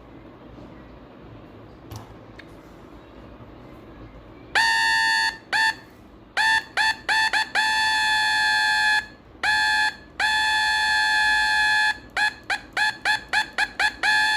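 A speaker driven by a homemade LM317 oscillator circuit gives a buzzing, reedy tone, keyed on and off by a push switch. It starts after about four and a half seconds of near quiet, then comes in bursts: some held for a second or more, others short rapid stabs, each beginning with a slight downward slide in pitch.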